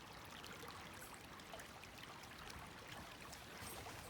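A small woodland brook running over stones, a faint steady trickle and gurgle of flowing water.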